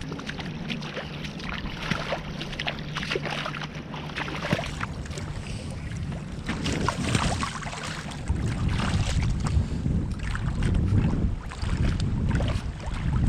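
Wind buffeting the camera microphone, gusting harder after about six seconds, over the small splashes and sloshing of shallow water as a man wades and works his hand into a sandworm hole.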